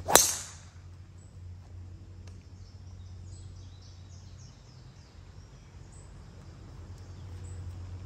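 A driver striking a golf ball off the tee: one sharp crack of the clubface just after the start, ringing out briefly.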